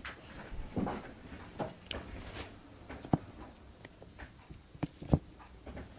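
Light handling noises from wiping dissolved thermal paste off with tissue: soft rubbing and scattered small knocks and clicks, the sharpest about three and five seconds in.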